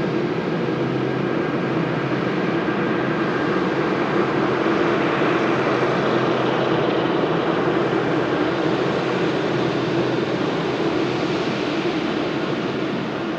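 Jet airliner on final approach to land, its engines making a steady, loud noise that swells a little in the middle and eases near the end.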